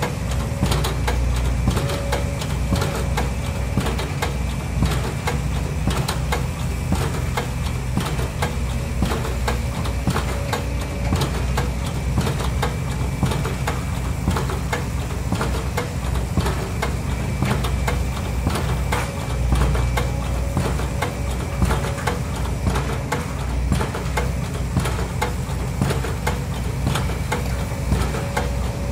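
Heavy construction machinery engine running steadily, with a rapid, irregular knocking clatter throughout.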